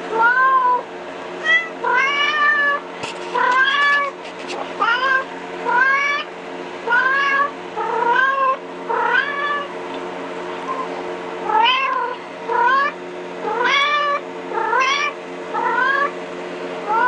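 Recorded kitten mewing played through a phone speaker: over a dozen short, high mews that rise in pitch, about one a second, with a brief pause midway, over a steady low hum.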